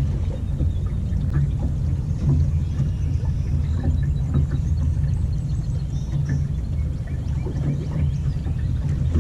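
A boat's motor running steadily while underway, a constant low hum.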